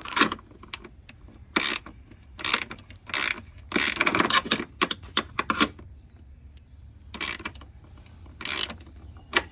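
Hand socket ratchet clicking in short bursts, about eight strokes' worth, as bolts are snugged down on a hood latch.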